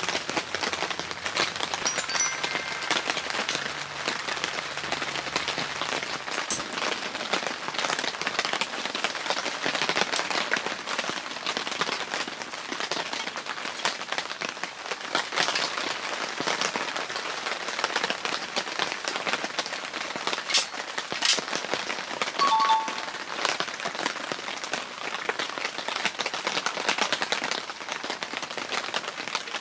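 Steady rain pattering on a tent shelter's fabric roof, a dense, even crackle of drops that runs on without let-up.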